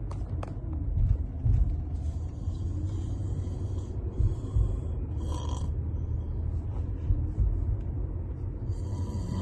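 A person snoring in sleep, the breaths coming and going every second or two, over a heavy low rumble with occasional thumps.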